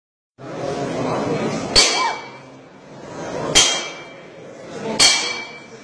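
Metal baton striking a standing man three times, about a second and a half apart; each blow is a sharp crack followed by a short metallic ring. A murmur of voices runs underneath.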